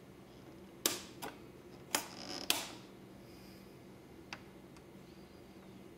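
Control knobs on a Califone 1455K record player being turned by hand, the rotary switch clicking: four sharp clicks in the first two and a half seconds, then one fainter click a couple of seconds later.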